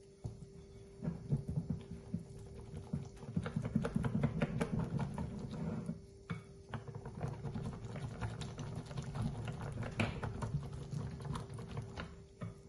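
Silicone-coated balloon whisk beating a thin flour-and-water batter in a glass bowl, to break up lumps of flour: quick, rhythmic clicking and slapping of the wires in the batter and against the glass, with a brief pause about six seconds in.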